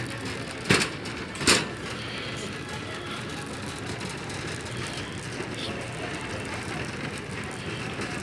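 Steady background rumble of a large store, heard while walking through it, with two sharp knocks a little under a second apart, about a second in.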